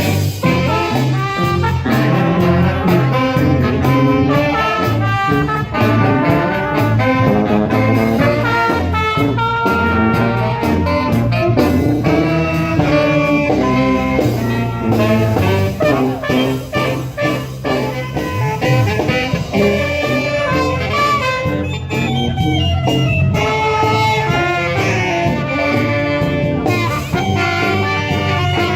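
A band playing a lively tune with brass instruments over a steady beat.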